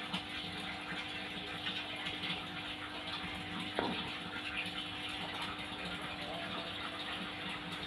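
Soft scratching and rustling of hair being combed and handled close by, over a steady hiss and low hum, with one light tap about halfway through.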